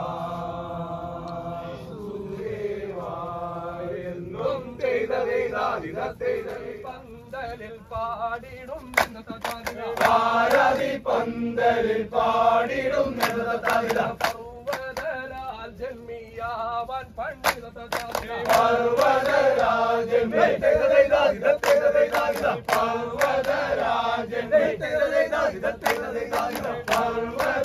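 A group of men chanting a Poorakkali song together, with repeated sharp hand claps joining in from about nine seconds in.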